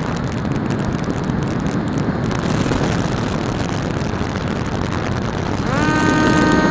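Steady rush of air over an RC flying wing in flight. Near the end, its electric motor and propeller throttle up, a whine rising quickly in pitch and then holding steady.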